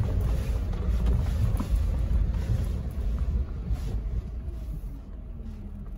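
Low, steady rumble of a Jeep driving on a dirt road, heard from inside the cabin: engine and tyre noise, fading down over the last couple of seconds.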